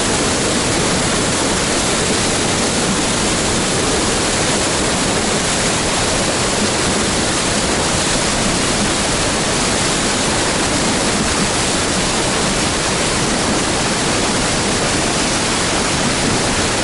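Pryamskoy waterfall in spring flow: water pouring in a loud, steady, unbroken rush.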